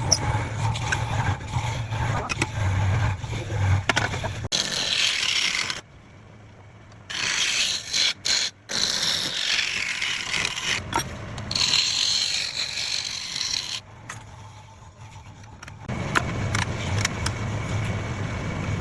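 Wood lathe running while a turning tool scrapes and cuts the spinning wood, in short clips that change abruptly, with a quieter stretch about six seconds in.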